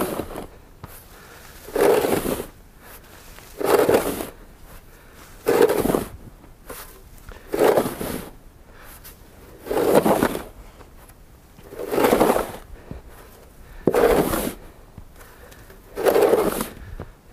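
Snow shovel with a red plastic blade pushed and scraped through deep snow in a steady rhythm: a loud scraping stroke about every two seconds, eight or nine in all.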